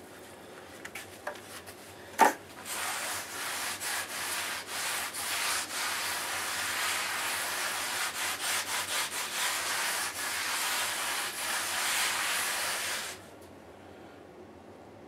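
A damp rag rubbed back and forth over fresh, wet mortar around a floor drain, smoothing and wiping the patch, for about ten seconds before it stops abruptly near the end. A single sharp knock comes about two seconds in, just before the rubbing starts.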